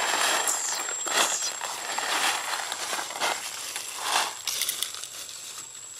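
Dry fallen leaves rustling and crunching in repeated bursts, about one a second, as monkeys move through the leaf litter.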